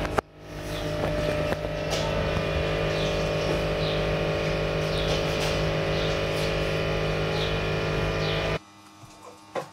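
A steady mechanical hum made of several steady tones, which cuts off abruptly near the end.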